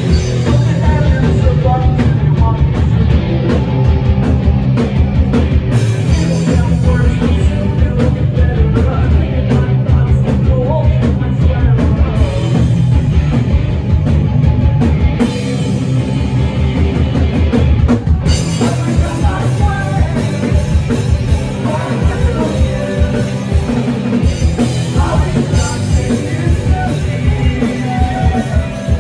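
Rock band playing live and loud: electric guitars and drums, with singing.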